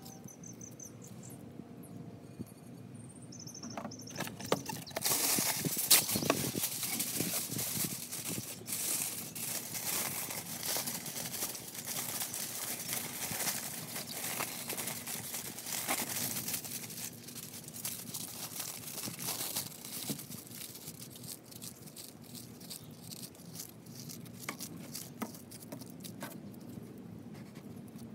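Aluminium foil crinkling and crackling as it is handled, scrunched and twisted into a coil, loudest from about five seconds in to about twenty seconds in, then softer.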